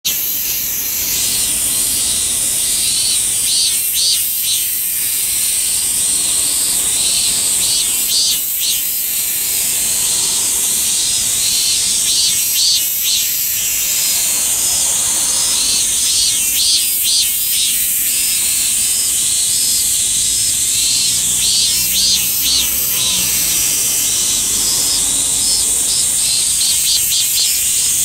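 Robust cicada (minmin-zemi) singing, its pulsing phrases swelling and fading about every four to five seconds over a steady high-pitched hiss.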